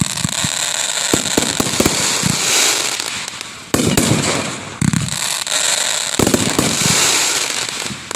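Aerial fireworks bursting close overhead: a dense run of quick crackles and pops, with sudden loud bursts about four and six seconds in.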